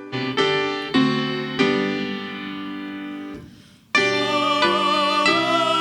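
Piano playing a few struck chords that ring and fade away. About four seconds in, a louder, fuller passage begins, with a wavering melody line over held chords.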